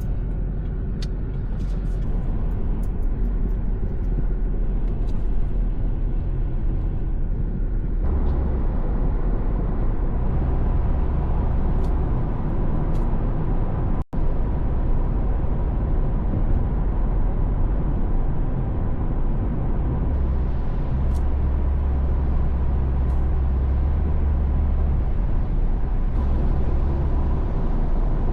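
Steady road noise of a car driving at speed: a low rumble with a hiss of tyres on the road, getting a little louder about a third of the way in. The sound cuts out for an instant about halfway through.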